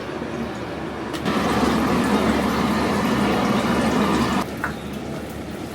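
Water running from a kitchen tap into a sink: it starts suddenly about a second in and is shut off about three seconds later, over a steady background hum.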